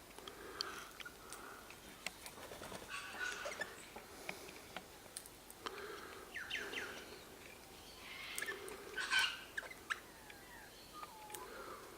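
Birds calling outdoors: short calls come every two or three seconds, with scattered sharp chirps between them and a louder burst near the end.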